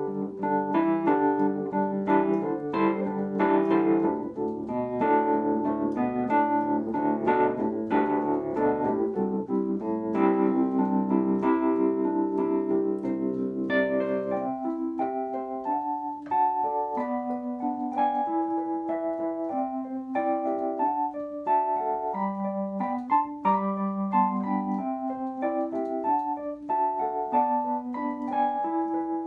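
Electric piano played solo with no singing: full, busy chords for the first half, thinning out about halfway through to a sparser line of single notes over a lower part.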